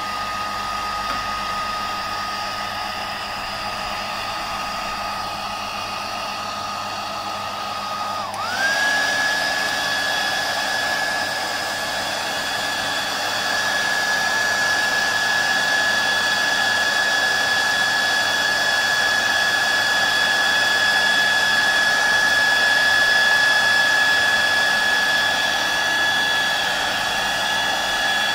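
A hairdryer runs continuously, blowing hot air with a steady whine over the rush of air. About eight seconds in, the whine dips briefly, then settles at a higher pitch and the hairdryer gets louder.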